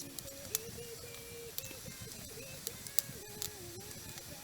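Wood campfire crackling, with sharp, irregular pops and snaps. A faint tune of held notes plays underneath.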